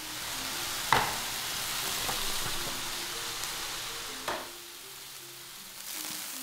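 Potato chunks sizzling in hot oil in a large iron wok as they are stir-fried with a wooden spatula, which knocks sharply against the wok twice, about a second in and about four seconds in. Near the end the hiss rises again as rib cooking liquid is poured into the hot wok.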